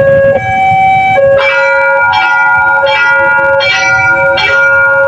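Railway level-crossing warning siren sounding: an electronic alarm alternating between two steady notes. About a second in, it is joined by a bell-like chime struck a little faster than once a second. The alarm warns of an approaching train.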